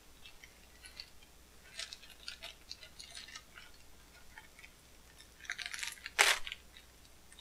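Plastic bubble mailer crinkling and crackling as it is slit further open, in scattered short crackles, with a louder cluster and the sharpest crackle about six seconds in.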